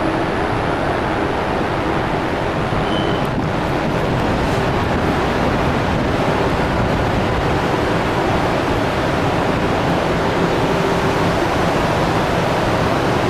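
Steady ambient noise of a large railway station hall: a dense, even hiss and rumble with no distinct events.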